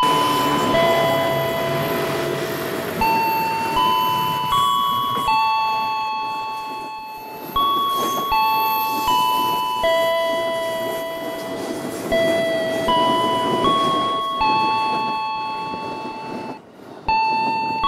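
Music: a slow melody of chime-like bell tones, one note struck about every one to two seconds, each ringing and fading away before the next.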